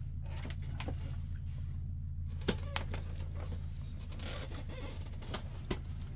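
Scattered light clicks and knocks of a phone and charging cables being handled on a wooden floor, over a steady low hum.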